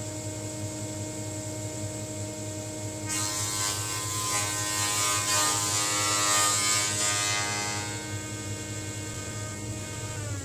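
SICAR Furore 300 I combination machine's jointer running with a steady motor hum. About three seconds in, a long twisted board is fed across the spinning cutterhead, giving some five seconds of planing noise that is loudest in the middle of the pass. The noise then stops, leaving the motor hum alone.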